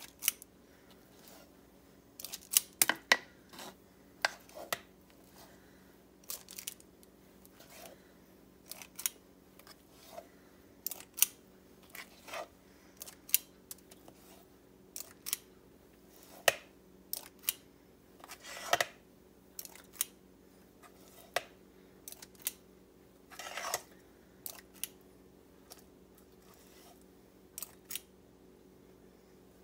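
Metal spring-release cookie scoop clicking again and again as its squeeze handle is worked, with short scrapes of the scoop against the saucepan while thick cookie dough is scooped out and dropped. The clicks come at an irregular pace, with a couple of longer scrapes past the middle.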